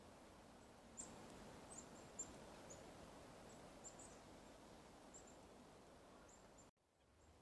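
Faint, scattered high, short chirps of small forest birds over a quiet outdoor hiss; the sound cuts out briefly near the end.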